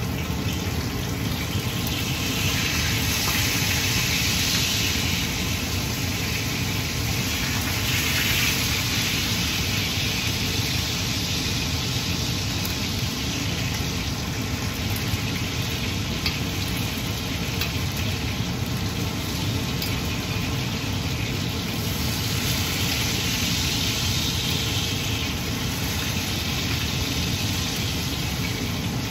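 Pork belly sizzling as it fries in its own fat in a stainless steel Saladmaster pan, the hiss swelling and easing in waves, over the steady drone of a kitchen range hood fan.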